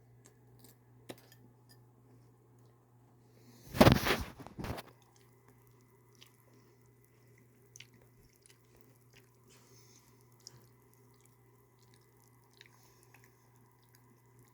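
A person chewing crunchy cereal, with small crunches and mouth clicks scattered through and one loud, noisy burst about four seconds in that lasts about a second, over a steady low hum.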